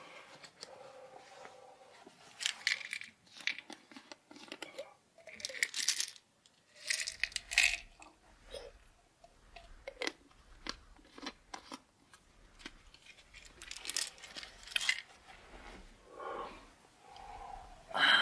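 Small handling noises: a dozen or so short crinkles, clicks and rustles, spread out with quiet gaps between them.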